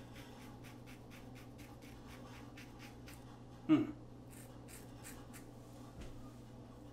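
Single edge injector razor scraping through beard stubble in quick short strokes, a fast faint rasping series. A brief vocal sound from the shaver is heard about halfway through.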